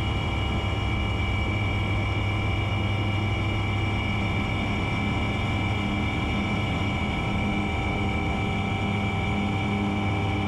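Single-engine light propeller plane's engine and propeller running steadily, heard from inside the cockpit as the plane rolls down the runway.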